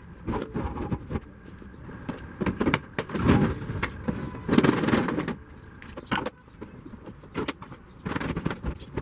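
Hard plastic tool cases being handled in a pickup's load bed: a string of knocks and clatters as they are set down and bumped, with two longer scraping spells near the middle as cases are slid across the bed.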